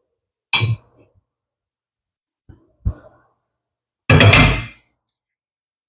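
Enameled cast-iron Dutch oven lid clanking as it is lifted off the pot, a faint knock a couple of seconds later, then a louder, longer clank with a brief ring as the lid is set down on the cast-iron stove grate.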